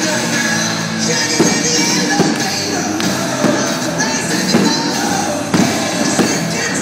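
Rock music with singing, with a steady beat.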